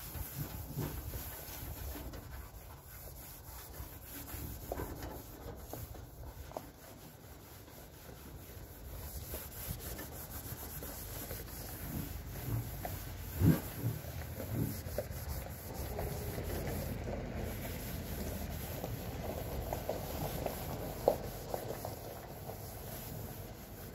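Terry cloth towel rubbing across the plastic hood of a Craftsman GT6000 lawn tractor, buffing off dried Nu Finish car polish. The rubbing is steady, with a couple of sharp knocks, one about halfway through and one near the end.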